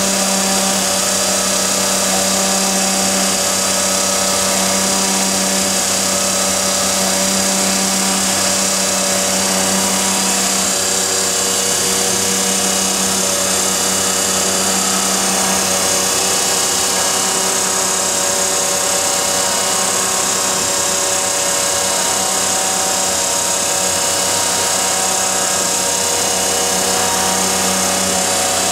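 A 1952 Heald 271 Size-Matic internal grinder running, with its grinding wheel, workhead chuck and hydraulic pump all on. It makes a loud, steady machine hum with several constant tones and a bright high hiss over it.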